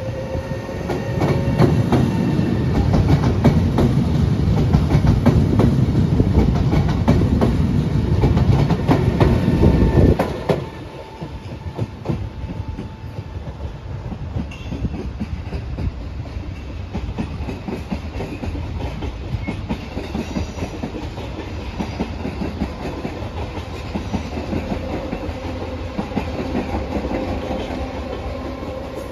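Trenitalia Jazz electric multiple unit running past close by, a loud rumble with rapid wheel clicks over the rail joints, which stops abruptly about ten seconds in. After that, a quieter, more distant train running, with a faint high wheel tone near the end.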